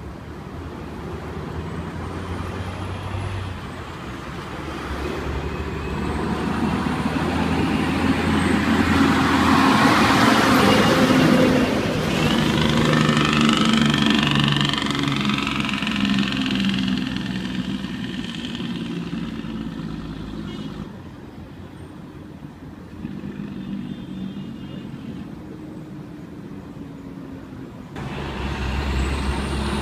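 Heavy trucks passing on a road. A loaded flatbed articulated lorry's diesel engine builds up to a close pass-by about ten seconds in, then is heard pulling away. The sound drops suddenly about twenty-one seconds in to quieter traffic, and near the end a deep truck engine rumble starts abruptly.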